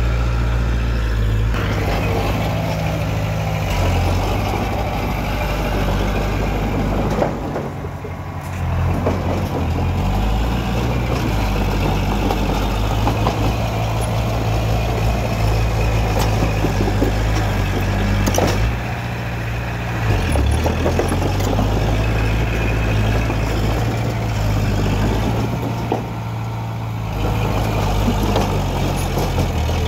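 Komatsu crawler bulldozer's diesel engine running as it pushes stone and earth fill, a steady low drone that drops back briefly three times, about 8, 19 and 26 seconds in.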